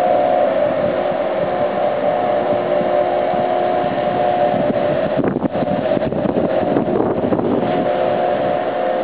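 Large container ship passing close alongside, its machinery giving a steady loud drone with a couple of held hum tones. The drone is briefly broken by uneven buffeting about halfway through.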